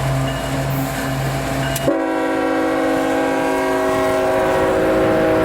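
Diesel freight locomotive's engine running with a steady hum; about two seconds in, the locomotive's air horn sounds a long, loud multi-note chord that holds steady to the end.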